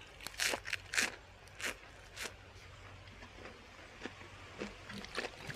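Close-up chewing and biting of crunchy food: a series of short, irregular crunches, most of them in the first two and a half seconds, then sparser.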